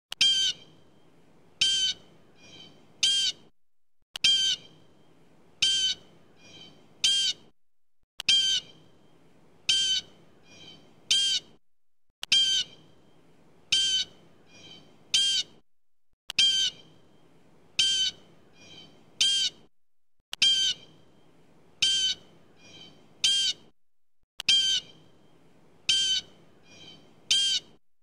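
Blue jay giving harsh 'jay' calls: three loud calls about a second and a half apart, with a fainter pair between the second and third. The same four-second sequence repeats seven times as a loop.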